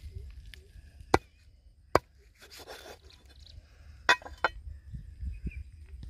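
Broad knife chopping a plucked quail on a wooden stump block: four sharp chops, one about a second in, one at two seconds, then two close together past four seconds.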